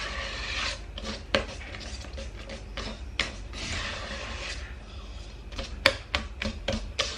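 Wire whisk beating cake batter by hand in a stainless steel bowl: a wet scraping swish, with the whisk clicking sharply against the metal bowl now and then, several times near the end.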